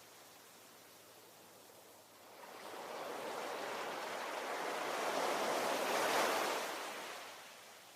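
Ocean waves: after a quiet lull for about two seconds, one wave rushes in, building to a peak about six seconds in, then dies away near the end.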